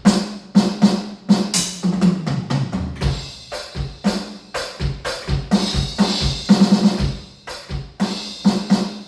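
Electronic drum kit set to an acoustic drum sound, played as a steady groove of kick drum, snare and cymbal hits. Cymbals wash more heavily about two-thirds of the way in.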